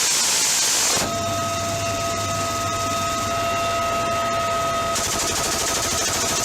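Aircraft-mounted M134 minigun firing a sustained burst: a steady rapid buzz with a whining tone, starting about a second in and running for about four seconds, over a loud high hiss of wind and engine.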